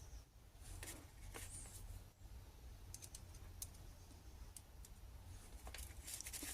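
Faint scattered clicks and light handling noises over a low steady hum, from small parts being handled at the bench.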